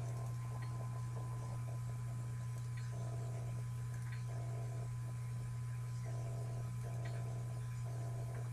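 Steady low electrical mains hum, with a thin steady high tone above it and a few faint mouse clicks.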